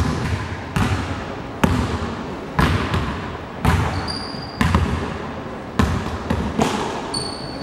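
A basketball dribbled on a hardwood gym floor, about one bounce a second, each bounce ringing on in the hall's echo. A couple of short high squeaks, sneakers on the floor, come about midway and near the end.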